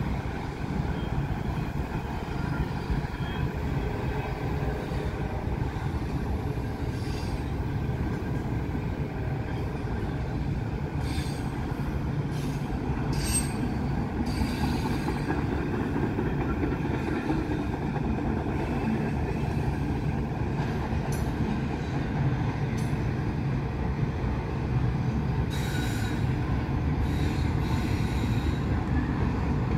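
Norfolk Southern intermodal freight train rolling past, its wheels making a steady rumble on the rails. A few brief sharp noises come through about halfway and again near the end.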